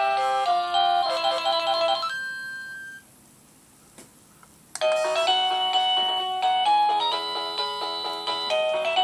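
Dick Smith Y8450 wireless door chime playing its electronic melody tunes. One tune ends and dies away about two to three seconds in. After a short pause with a faint click, another many-note tune starts near the middle and plays on.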